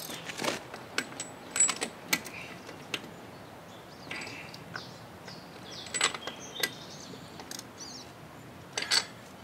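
Scattered sharp metallic clicks and taps from tools and parts being handled on an outboard motor that is not running.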